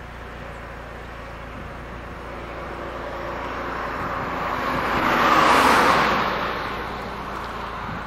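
A car passing by on the road: its tyre and engine noise swells over a few seconds, peaks just past the middle, then fades away.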